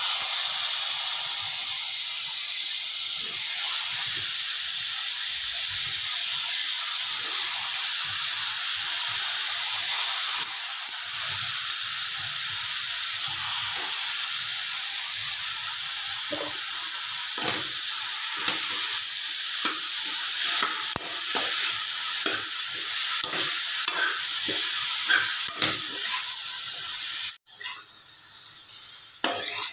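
Brinjal slices sizzling loudly in hot oil in a frying pan just after going in. From about halfway through, a steel spatula scrapes and stirs them in repeated strokes. The sizzle cuts off suddenly near the end and comes back softer.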